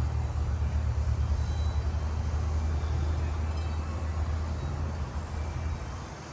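Low, steady rumble of a motor vehicle's engine, fading over the last second or so as it moves off.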